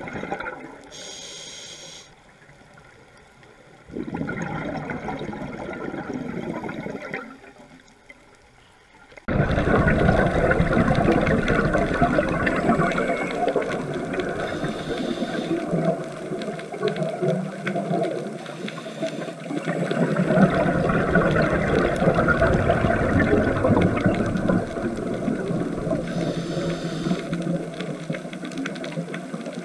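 Underwater sound of scuba diving: a rushing, bubbling noise from divers' exhaled breath through their regulators, swelling and easing in waves, and louder from about nine seconds in.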